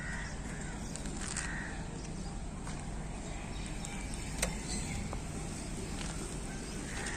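Outdoor ambience: a steady low background rumble with a few short harsh bird calls, near the start, about a second and a half in, and near the end. One sharp click comes a little past the middle.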